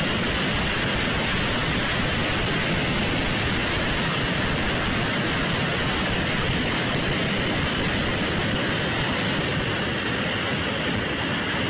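BM-21 Grad multiple rocket launchers firing a salvo, the launches running together into one steady rushing noise with no separate bangs.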